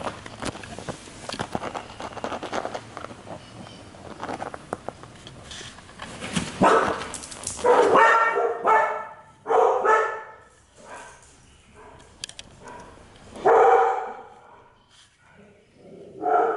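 Young puppy barking: a string of short, high barks through the second half, after a stretch of small clicks and scratches.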